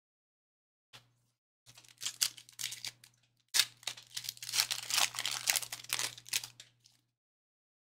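Plastic wrapper of a Panini Prism basketball card pack being torn open and crinkled. The rustling comes in two spells with a short break about three and a half seconds in.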